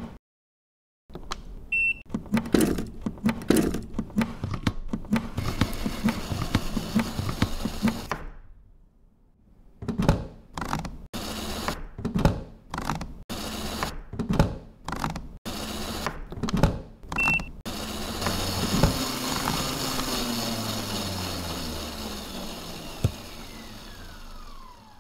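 Heinzelmann Chef X kitchen robot being set up and run: the power plug clicks in, the machine gives two short beeps, and parts are handled with knocks and clatter. The motor then runs steadily and winds down near the end with a falling whine as the machine is paused.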